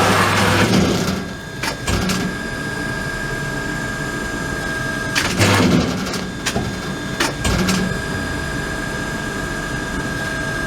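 Amada Promecam press brake running through its CNC bending program: a steady machine hum with a faint high whine, a heavier surge of noise about a second in and again around five to six seconds in, and a few sharp clicks between them.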